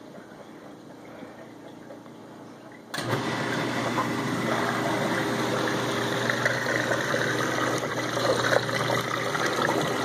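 Whirlpool dishwasher's pump motor switching on suddenly about three seconds in, then running with a steady hum and rushing, churning water.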